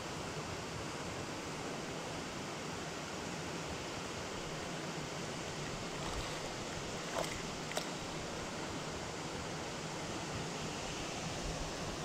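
Steady rush of a shallow rocky stream running, with two short sharp clicks about seven and eight seconds in.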